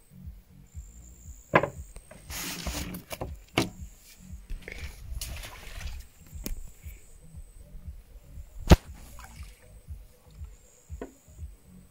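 Irregular knocks and clatter on a wooden fishing pontoon while a landed carp is handled, with two brief splashy rushes of noise. One sharp knock, the loudest, comes about three-quarters of the way through.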